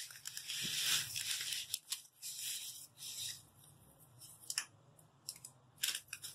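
Dry spaghetti and its plastic packet handled over a pot of water, giving crinkly rustling in bursts over the first few seconds. Then a few light clicks as the strands settle against the pot.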